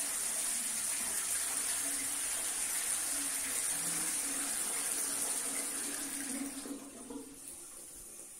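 Shires Symphony toilet flushing: water rushing and swirling through the bowl, steady, then tailing off about seven seconds in.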